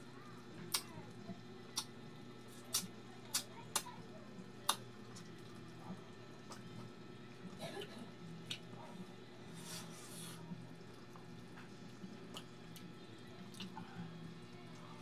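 Close-up mouth sounds of eating eel in coconut-milk sauce with rice by hand: wet chewing and sharp lip smacks, about six in the first five seconds, then two longer wet sucking sounds about eight and ten seconds in, over a faint steady hum.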